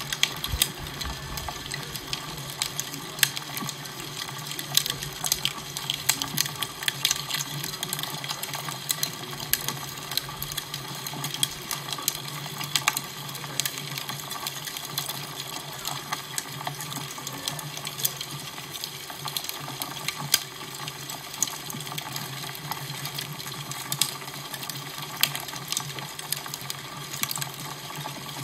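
Fire crackling: a steady hiss with frequent irregular sharp pops and snaps.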